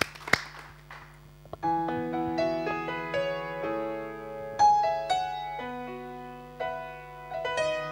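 The last scattered claps of applause die away in the first second, then a slow piano intro begins about a second and a half in, with struck chords and single notes that ring and fade. It is the instrumental opening of a gospel song, before the voice comes in.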